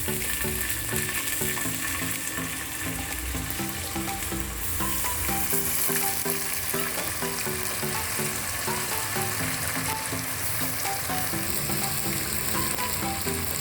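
Sizzling in the pot as rice fries in hot oil with browned onions, beef and pilau masala. The sizzle is steady, with background music playing over it.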